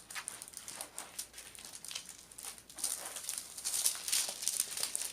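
Rustling and crinkling of a plastic-covered diamond painting canvas being handled and unfolded, a run of irregular crackles that gets louder and busier about three seconds in.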